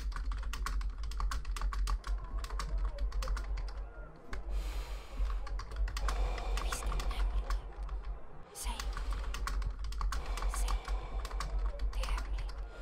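Rapid, irregular clicking of typing on a computer keyboard, over a steady deep low hum.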